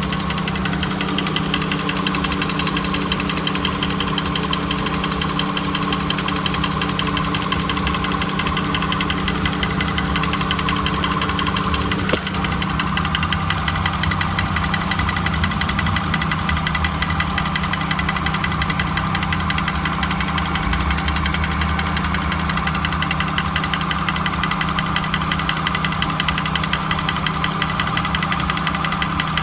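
1999 Honda Accord engine running steadily with a continuous grinding noise, a fast, even rattle over the engine hum.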